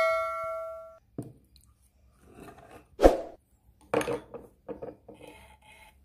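A struck metal part ringing and dying away over the first second, then scattered knocks and clicks of hands and metal parts being handled on an industrial single-needle sewing machine. The loudest knock comes about three seconds in.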